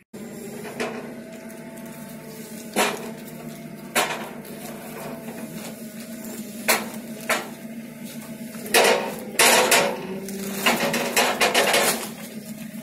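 Sharp metal knocks and clanks as a forklift's steel lifting bar comes in over woven bulk bags in a truck trailer, with rattling and rustling bursts from about nine seconds in. A steady engine hum runs underneath.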